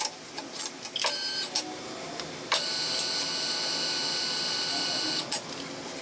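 Nargesa CC60 electric tube bender's motor running steadily for nearly three seconds as it bends steel tube, starting and stopping abruptly. Before it come clicks and knocks of the tube and controls being handled, with a short burst of the motor about a second in.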